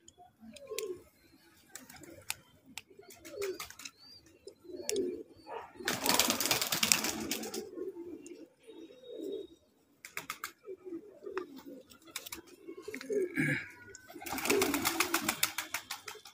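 Domestic pigeons cooing in repeated low coos. Twice, about six and fourteen seconds in, there is a loud rustling clatter of feathers.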